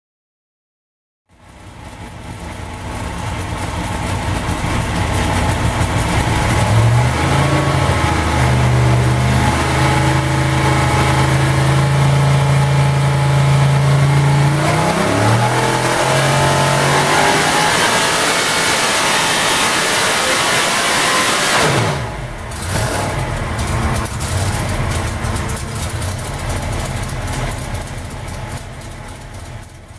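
An 802-cubic-inch billet big-block V8 drag-racing engine, fuel-injected, running loud on an engine dyno. It holds a steady speed, then climbs in pitch through a pull. About twenty-two seconds in the throttle is chopped and the pitch falls, and it runs on more quietly afterwards.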